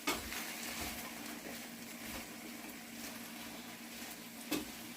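Okra frying in oil in a pan, a steady sizzle, with two sharp knocks, one at the very start and one near the end.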